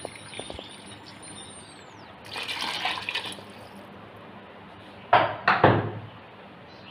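Water poured from a plastic measuring cup into a rice cooker pot of rice, splashing, with a louder splash about two and a half seconds in. Two short knocks follow about five seconds in.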